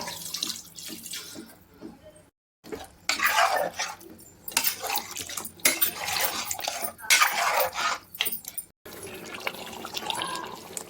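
Water running from a tap and splashing in a sink, in several separate bursts.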